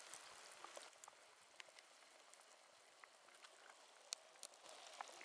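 Near silence: a faint hiss with scattered light ticks and crackles, and a couple of sharper ticks about four seconds in.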